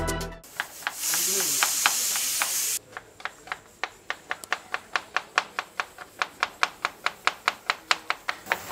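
Knife chopping an onion on a plastic cutting board, in even sharp strokes about four a second. Before the chopping starts, a loud steady hiss lasts about two seconds.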